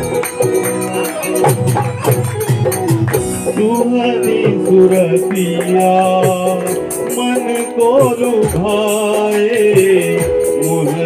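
Live devotional song: singing over dholak drumming and held instrumental notes, with a steady rattling percussion and hand clapping keeping the beat.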